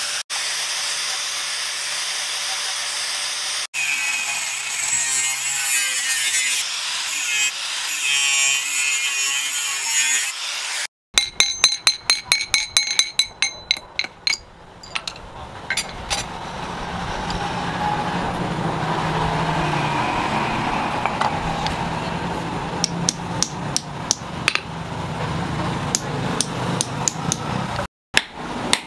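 An angle grinder fitted with a sanding disc runs steadily, grinding against wood, and cuts out briefly twice. About eleven seconds in, a hammer strikes metal in a fast run of ringing blows, about four a second for three to four seconds. Steady working noise and scattered lighter taps follow.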